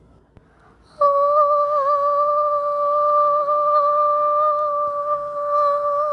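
A voice humming one high, steady note. It starts abruptly about a second in and is held with only slight wavers.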